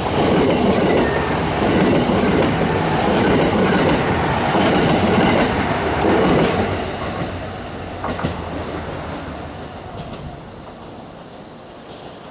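Hamakaze limited express diesel train passing close by, its wheels clattering over the rail joints. The sound stays loud for the first six seconds or so, then fades steadily as the train moves away.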